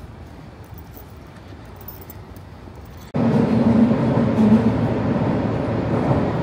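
Low background noise, then about three seconds in a loud vehicle noise with a steady low hum cuts in abruptly.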